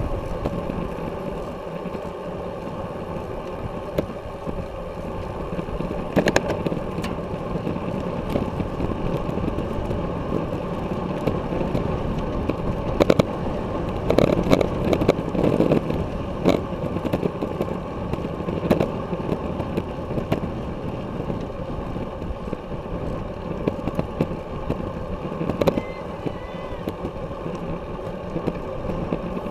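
Wind rush and tyre noise from a road bicycle riding at speed: a steady rushing noise with occasional sharp clicks and knocks.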